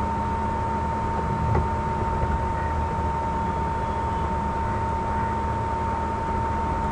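Steady hiss and low hum with a constant thin whine, the electrical and fan noise floor of a recording with nothing else going on; one faint click about a second and a half in.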